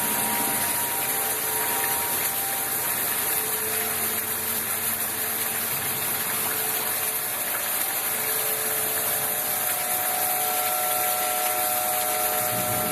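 Steady rushing noise of running floodwater, with faint steady engine-like tones mixed in.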